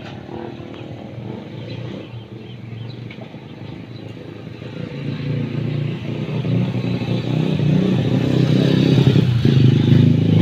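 A motorcycle engine drawing near, growing steadily louder from about halfway through and loudest near the end.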